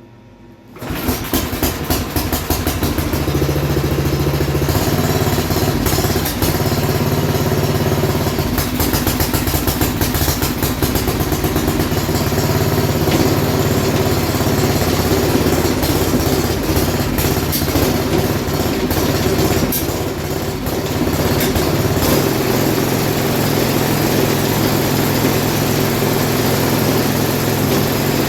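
A 12 hp MTD Snowflite snowblower engine starts about a second in and runs steadily, on its test run after an auger belt replacement. Its note shifts around twenty seconds in.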